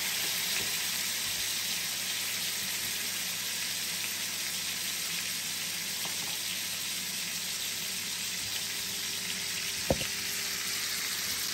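Pork chops frying in hot oil in a non-stick pan: a steady sizzle, with one sharp click near the end.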